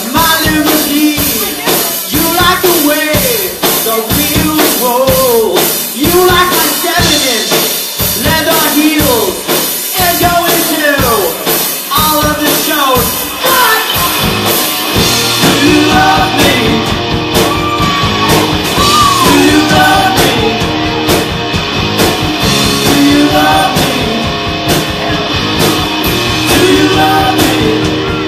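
Live rock band playing: a lead singer over electric guitars, bass guitar and a steady drum beat. About fifteen seconds in, the band's sound fills out, with a held low bass note under it.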